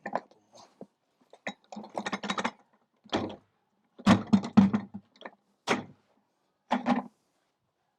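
A string of short, irregular knocks and clatters, some six in a row with gaps between, as the stink bugs caught in the vacuum cleaner are emptied into a wheelie bin.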